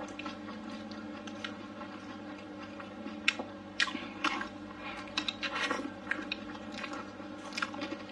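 Close-up mouth sounds of someone chewing blistered tiger-skin green peppers and meat: irregular wet smacks and squishes with scattered crisp clicks, over a steady low hum.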